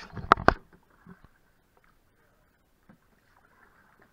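Canoe paddle knocking against the canoe's hull several times in quick succession at the start, then a few faint knocks and quiet paddle strokes in the water.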